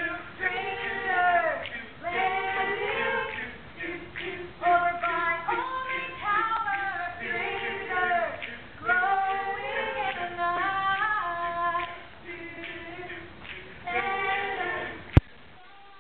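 A group of mostly female voices singing together in short phrases. About fifteen seconds in, a sharp click cuts the singing off, leaving only faint hiss.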